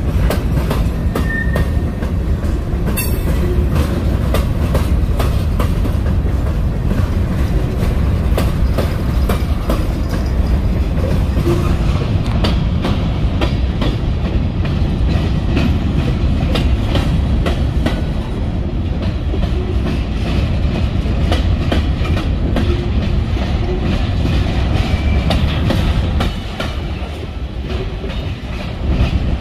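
Freight train's cars rolling past, wheels clicking steadily over the rail joints in a continuous rumble, with a brief high screech about three seconds in.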